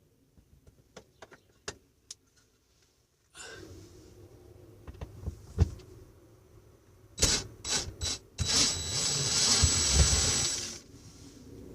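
Mechanical handling sounds: scattered clicks and knocks, then a burst of sharp clicks and about two seconds of steady mechanical whirring that cuts off suddenly near the end.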